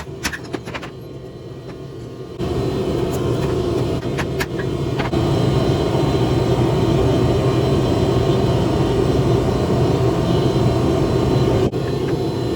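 A forge running with a steady, low rushing noise that steps up sharply about two seconds in and then holds. A few sharp clicks come in the first seconds.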